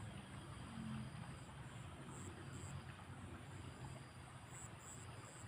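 Outdoor waterside ambience: a steady hiss of flowing water and a low hum, with insects chirping in short high pulses now and then.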